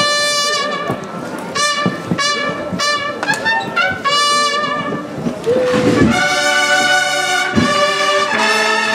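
Brass band playing a Holy Week processional march, with trumpets and trombones. It opens with phrased notes and broadens into long held chords about six seconds in.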